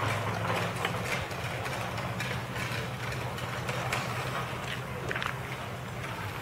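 A motor idling steadily with a low hum, with faint short chirps and ticks over it.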